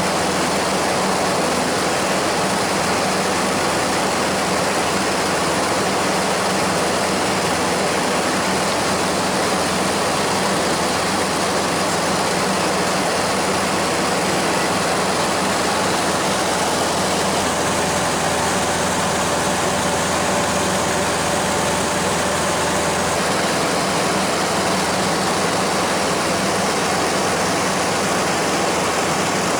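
A small plane's engine and propeller running steadily, a constant loud hum heard from inside the cabin.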